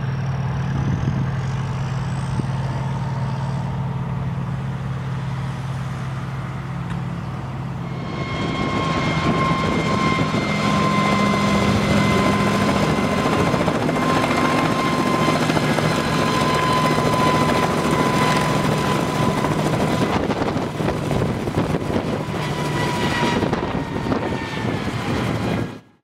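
Kamov Ka-26 helicopter with its two nine-cylinder Vedeneyev M14V-26 radial engines and coaxial rotors. For the first third it is a steady low engine drone heard from inside the cabin. It then becomes the fuller sound of the helicopter flying, with a steady high whine from the engines' cooling fans, the machine's typical siren sound. It cuts off suddenly near the end.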